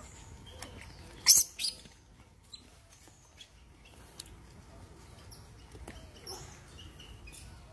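Macaques making faint high squeaks and chirps, with two short, loud hissy bursts about a second and a half in.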